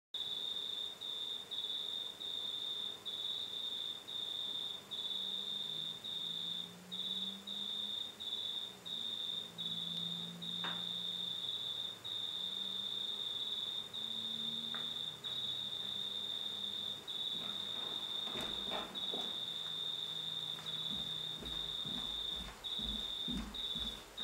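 A cricket chirping in long, high trills broken by short gaps. Footsteps come in near the end.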